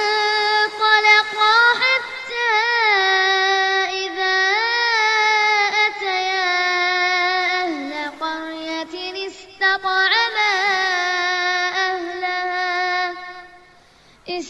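A child's voice chanting Quran recitation in the melodic tajweed style, holding long phrases with wavering ornaments and slides in pitch. The chanting stops about a second before the end.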